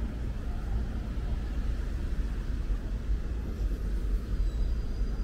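Busy city street ambience: a steady low rumble of road traffic.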